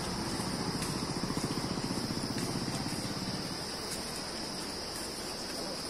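A motorcycle's engine pulling away and fading over the first few seconds, its exhaust pulsing. Under and after it, a steady high insect drone.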